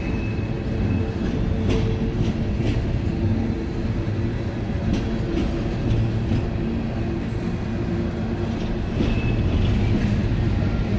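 Open hopper cars of a CSX freight train rolling past: a steady low rumble of steel wheels on rail, with irregular clicks and knocks, and a faint high squeal near the end.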